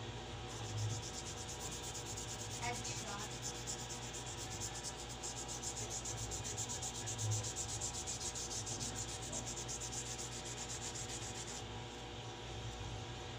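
A brush scrubbing a rusty steel scissors blade with cleaning paste in rapid, even back-and-forth strokes. The rubbing stops a little before the end.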